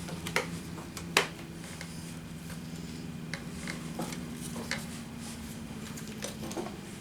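Scattered clicks and knocks from hands working a truck seat cushion and its cover back together, the sharpest about a second in, over a steady low hum.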